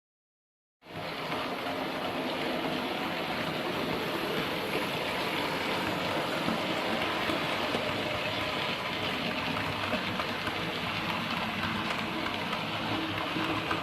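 OO-scale model train running along the layout's track, a steady mechanical running noise that starts suddenly just under a second in.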